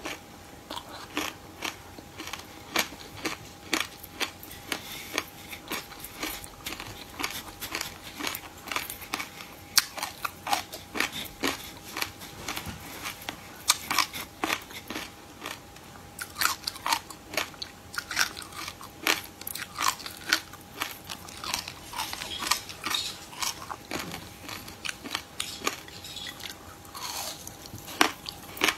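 Crunching and chewing of dry raw buckwheat groats, a dense irregular run of sharp crackling crunches several times a second, with a spoon stirring through the loose dry grains in the bowl. A faint steady hum runs underneath.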